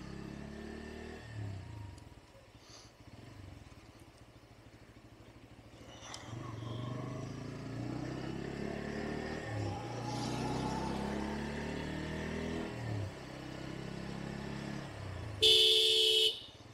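Bajaj Pulsar N160's single-cylinder engine heard from the rider's seat while riding, its pitch climbing and then dropping back several times as it shifts, quieter in the first few seconds. A horn beeps loudly once, for under a second, near the end.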